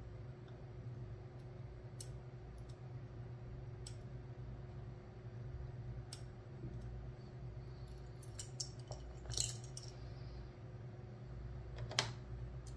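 Scattered small metallic clicks and clinks of lock pins and tweezers as a pin-tumbler lock's plug is emptied pin by pin, over a steady low hum. There is a brief cluster of clicks past the middle and a sharper click near the end.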